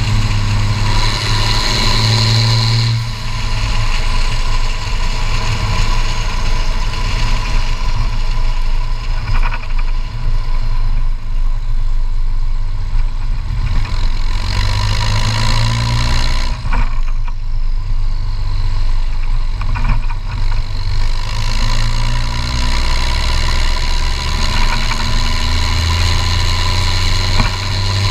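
Case IH 1455 XL tractor's turbocharged six-cylinder diesel running loud through a straight-pipe exhaust stack while driving. The engine note falls away and comes back several times as the throttle is eased and reapplied.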